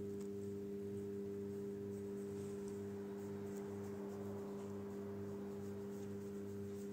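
A steady low hum of several held tones, with a fainter pulsing underneath about twice a second.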